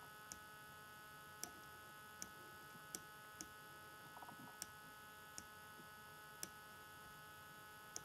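Faint steady electrical hum with a few steady tones, broken by sharp single clicks at uneven spacing, about one a second, from the pointing device used to hand-write numbers on screen.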